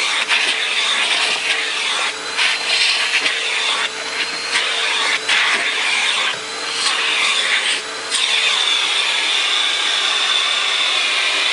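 Electrolux vacuum cleaner running with a steady motor hum and a strong suction hiss, as it is used on a cat. The hiss dips and shifts several times as the nozzle moves, then holds steady for the last few seconds.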